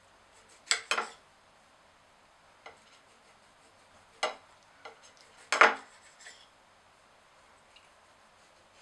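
A knife blade clicking and scraping against a ceramic plate while slicing soft poached peaches: two sharp clinks close together about a second in, another after about four seconds, and the loudest pair about five and a half seconds in.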